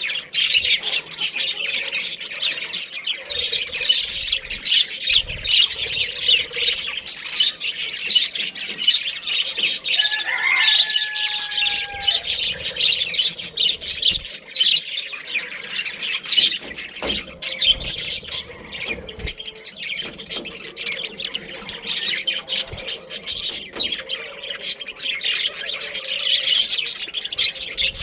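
A flock of budgerigars chattering, with a continuous stream of rapid high chirps and squawks. About ten seconds in, a lower drawn-out call is held for a second or two.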